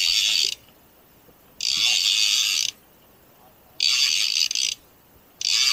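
Fishing reel ratcheting as line is wound in, in four bursts about a second long and about two seconds apart.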